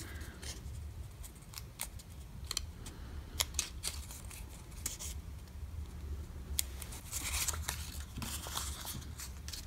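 Paper cut-outs of textured card rustling and ticking as hands handle and line them up: scattered light clicks and short rustles, a little busier near the end, over a low steady hum.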